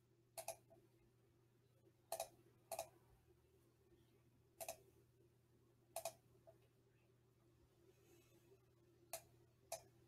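Computer mouse buttons clicking, about seven separate sharp clicks spread unevenly, a few with a quick second tick, over a faint steady low hum.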